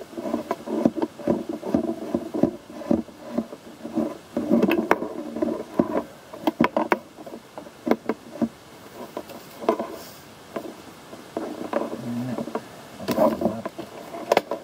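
Irregular handling noise of cables and small clutter being picked up and sorted on a workbench: rustling with scattered clicks and knocks, a few louder knocks near the end.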